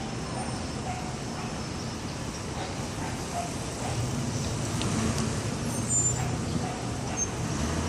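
City road traffic: a steady wash of passing vehicles, with a low engine rumble growing louder from about four seconds in.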